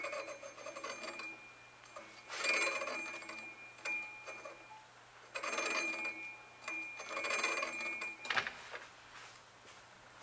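Metal lathe cutting the thin flywheel casting in about five short bursts, each with a high, steady ringing tone over scraping noise: the thin-section part ringing and chattering under the tool. A sharp knock follows near the end, over a steady low hum.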